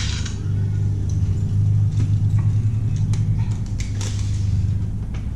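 Steady low machine hum with a few faint clicks about two to four seconds in.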